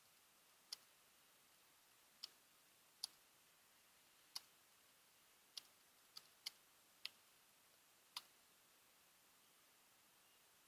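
Faint, sparse clicks of computer keyboard keys being typed: about nine sharp clicks at irregular spacing over low background hiss.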